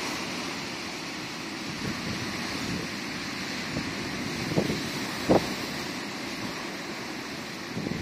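Rough sea in strong wind: a steady rush of waves breaking and foaming around boulders on the shore, with wind buffeting the microphone. Two brief low thumps a little past halfway.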